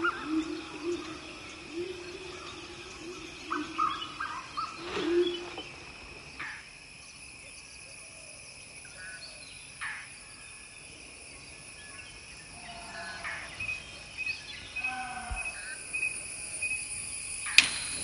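Forest ambience: a steady insect drone at several high pitches, with scattered bird calls over it and a warbling lower call in the first few seconds. A single sharp snap stands out near the end.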